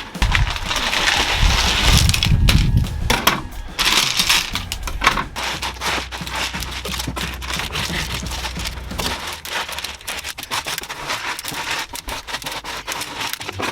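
Sound-deadening mat, made brittle with dry ice, cracking and breaking away in pieces from the car's metal boot floor as it is knocked and chipped loose: a fast, uneven run of sharp cracks and clatter, heaviest in the first few seconds.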